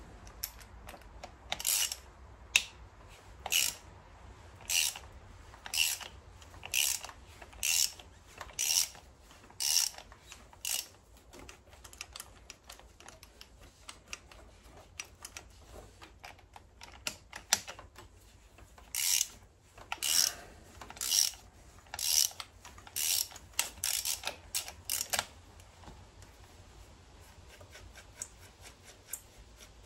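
Hand ratchet wrench clicking on its strokes, about one stroke a second, working a bolt or nut: a run of about ten strokes, a pause of several seconds, then a second run of about seven.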